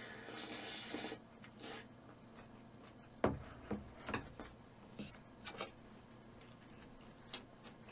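Close-miked eating sounds: a breathy slurp lasting about a second near the start, then faint, scattered wet chewing clicks and mouth smacks.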